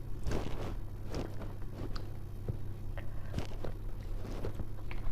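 A person chewing a taste of spiced crumbled tofu mixed with black beans and corn, with small scattered clicks and taps, over a steady low hum.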